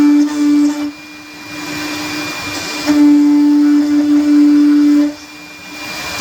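CNC router spindle cutting MDF with a steady whine over the hiss of the cut. It gets louder in two stretches: at the start and from about three to five seconds in.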